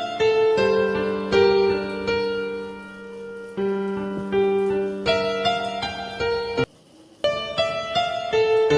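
Background piano music: soft melody of single struck notes over held bass notes, breaking off for about half a second near the end before resuming.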